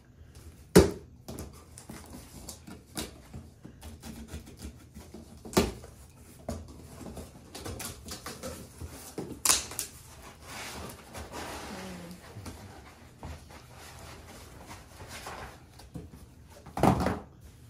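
Cardboard shipping box and its packing inserts being opened and handled: rustling and scraping, broken by a few sharp knocks, the loudest about a second in and a cluster near the end.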